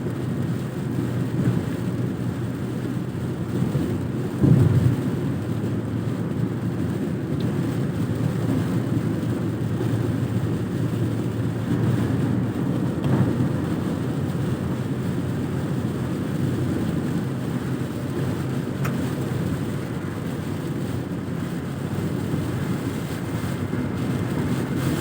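Steady low rumble inside a car driving in heavy rain: engine and road noise with rain on the body. About four and a half seconds in there is a brief louder low rumble.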